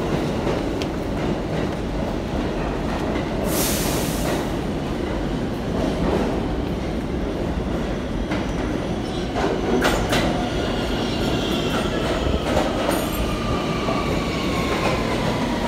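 A New York City subway train pulling into an underground station: a steady rumble of wheels on rails with sharp clacks. From about two-thirds of the way in, a whine falls in pitch as the train slows along the platform.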